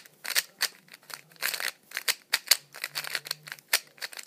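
Yan3 speed cube being turned quickly by hand for its first turns: a fast, irregular run of plastic clicks and scrapes. The turning sounds very dry, although lube is visible inside the cube.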